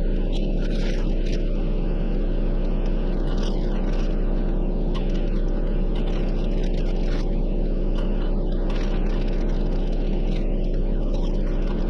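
Jeep driving on a rough forest road: a steady run of engine and road noise with scattered small knocks and rattles.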